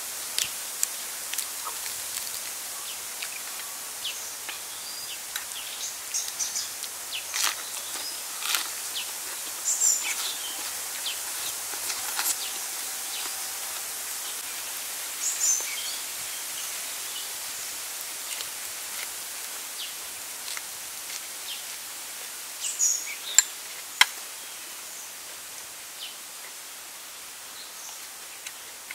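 Steady high hiss of outdoor forest ambience with a few brief bird chirps, broken by scattered short clicks and smacks of someone eating grilled chicken with the hands and a spoon. The sharpest clicks come twice in quick succession a little after two-thirds of the way in.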